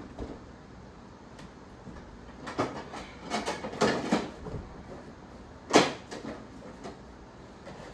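Hard objects knocking and rattling as they are handled: a cluster of clunks in the middle, then one sharp knock about six seconds in.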